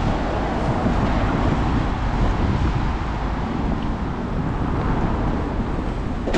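City street traffic noise: a steady low rumble and hiss of passing vehicles, with wind buffeting the microphone.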